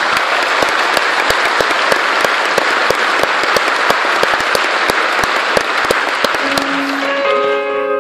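Audience applauding steadily, a dense patter of many clapping hands, which thins out near the end as piano notes begin the song's opening.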